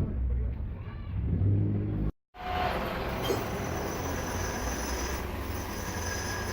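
Metal lathe running, with a low rumble; it cuts off sharply about two seconds in at an edit, then steady machining noise returns with a faint, steady high-pitched whine.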